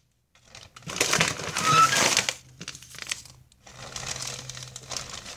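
Clear plastic bag crinkling and rustling as a hand rummages through it, in two spells of about a second and a half each.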